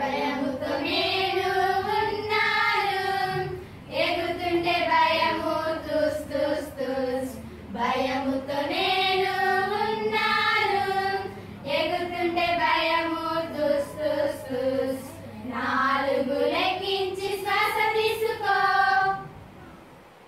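A group of women singing a calming song together in unison, in about five sung phrases with short breaks for breath between them, stopping shortly before the end.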